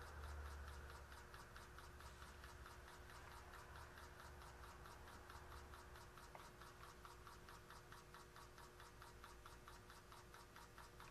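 Very small oscillating model steam engine running fast, each stroke of its oscillating cylinder giving a faint, even tick, several a second.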